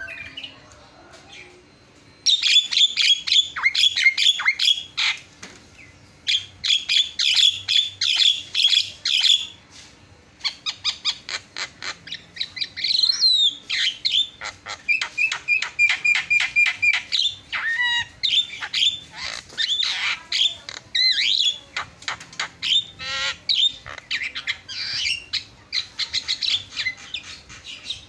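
Javan myna (jalak kebo) singing a long, fast, varied song of sharp chattering notes, squawks and gliding whistles, packed with borrowed phrases. It starts about two seconds in and pauses briefly twice.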